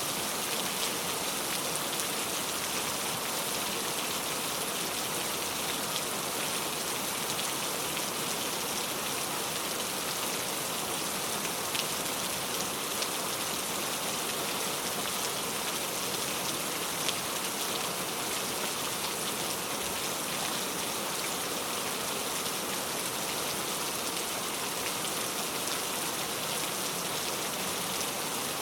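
Heavy rain falling steadily on a road, with no thunder: a dense, even hiss with the odd sharper drop hit standing out.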